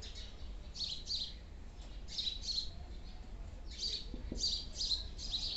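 Dry-erase marker squeaking and scratching on a whiteboard in short high-pitched strokes, mostly in pairs, as small X-shaped figures are drawn.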